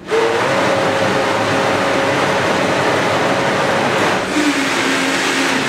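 Countertop blender switched on and running at high speed, puréeing fresh and dried mango into a thick pie filling. The motor starts abruptly, and its note drops to a lower pitch about four seconds in.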